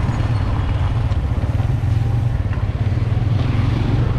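Steady engine drone and road noise from a moving vehicle, running evenly without change.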